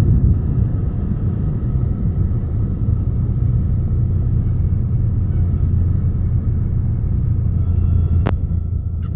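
Cessna 172N cabin during the landing: the four-cylinder Lycoming engine and rushing air make a steady, loud, low rumble. A single sharp click comes about eight seconds in.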